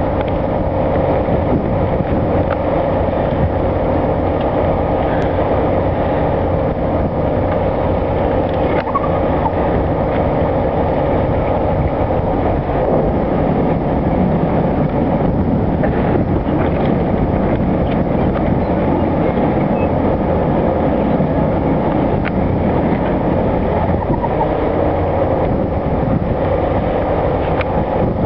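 Boat engine running steadily, a constant low drone.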